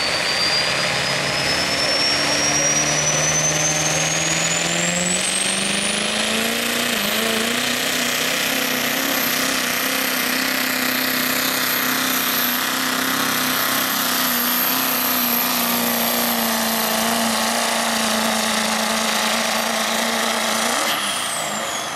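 Pro street diesel pickup truck pulling a sled at full throttle. The turbocharger whistle climbs steadily for the first seven seconds or so and then holds high and level over a steady engine note under heavy load. Near the end the whistle and the engine drop away quickly as the truck lets off at the end of the pull.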